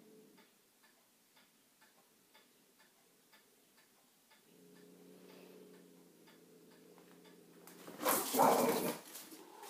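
A clock ticking steadily, about two ticks a second, over a faint low hum that drops out early and returns about halfway through. Near the end a loud, noisy burst lasting about a second covers it.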